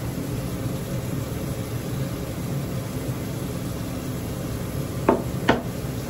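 Two short, sharp taps about half a second apart near the end, over a steady low background hum.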